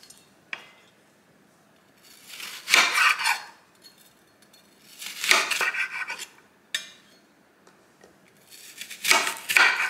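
Kitchen knife slicing through a red onion on a marble cutting board, in three bursts of cuts about a second long each, with a couple of single knocks of the blade on the board.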